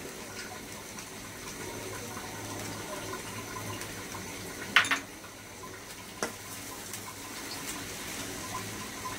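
Steady hiss from a pan of vermicelli cooking on a gas burner, with a sharp metal clink about five seconds in and a lighter one about a second later.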